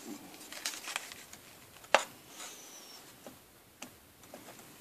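Handling noises of black coin presentation boxes and a paper certificate card: light rustles and taps, with one sharp click about two seconds in.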